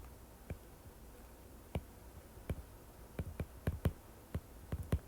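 Irregular light clicks and taps, about a dozen spread unevenly and bunched more closely near the end, from writing out an equation.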